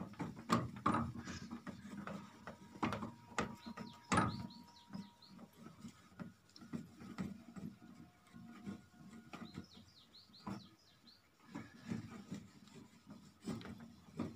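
A whiteboard being wiped clean: irregular rubbing and scuffing strokes against the board. Faint short chirps come in twice, in quick little series.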